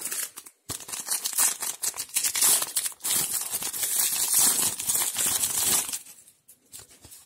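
Foil booster-pack wrapper of trading cards being torn open and crinkled by hand: a dense crackling rustle that starts just under a second in and stops about a second before the end.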